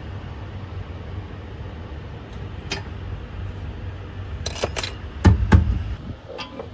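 Hex key and metal bracket hardware being handled: a single click, then a cluster of sharp metallic clicks with two louder thumps about five seconds in, over a steady low hum.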